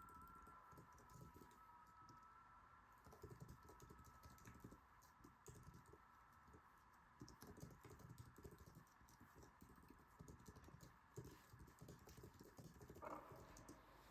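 Faint computer keyboard typing: soft, irregular key clicks, with a brief ringing tone near the end.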